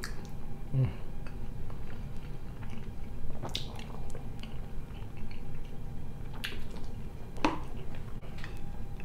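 A person chewing a mouthful of mashed potato and sausage, with a few short wet smacks of the mouth spread through the chewing.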